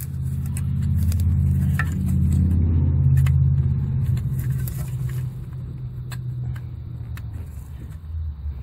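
Low, steady engine-like rumble that swells over the first few seconds and then eases off, with scattered light clicks of parts and tools being handled.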